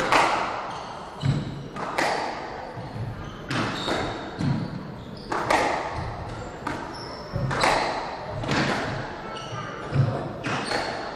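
Squash rally: the ball cracking off rackets and the court walls, about once a second, each hit echoing in the court. Low thuds and short high squeaks come between the hits.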